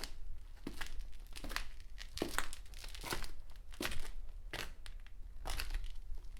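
Footsteps on concrete at a steady walking pace, a little more than one step a second.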